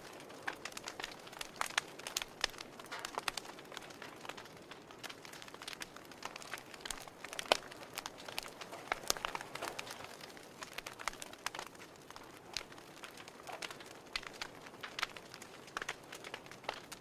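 Wood fire crackling: irregular sharp pops and snaps, several a second, with the loudest snap near the middle, over a soft steady hiss.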